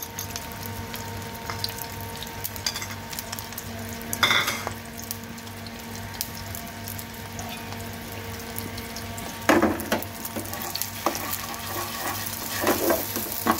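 An egg frying in hot ghee in a pan, a steady sizzle, with a spatula scraping and clinking against the pan about four seconds in and several times in the last few seconds.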